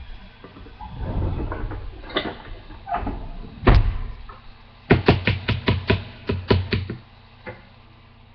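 Handling noise at a small electric contact grill: a rustle, a loud knock, then a quick run of about ten sharp knocks and clicks over two seconds.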